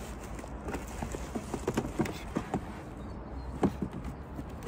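Handling noise: irregular light knocks and clatter as plastic electronics are set down and picked up, over a low steady rumble.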